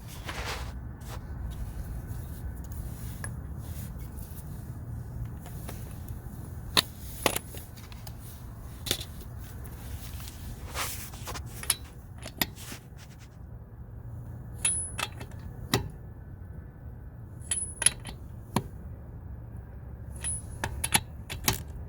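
Scattered sharp metal clinks and knocks as an impact wrench's socket is fitted onto lug nuts inside a wheel, over a low steady hum.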